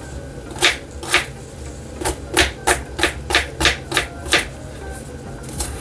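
A series of sharp kitchen knocks, one hard utensil striking another: two single knocks, then a quicker run of about three a second for a couple of seconds.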